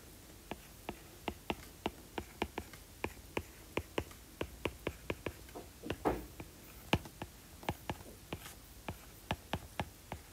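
Stylus tip tapping and clicking on a tablet screen during handwriting, about three sharp irregular clicks a second as strokes begin and end, with a brief rub about six seconds in.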